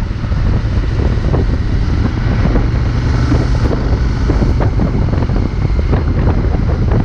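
Wind buffeting the microphone: a loud, dense low rumble with irregular gusts.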